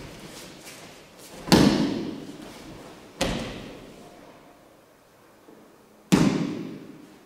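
Three impacts on tatami mats, each echoing in a large room. The first and loudest comes about a second and a half in, as the partner is thrown down in an aikido throw. A sharper one follows about three seconds in, and another loud one near the end while he is held pinned.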